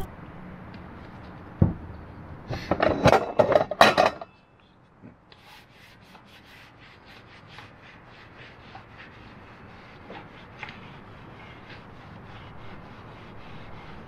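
A cotton dish towel rubbing a wooden cutting board dry in many short, quick strokes. It follows a burst of loud clacks and knocks a few seconds in, as dishes are handled.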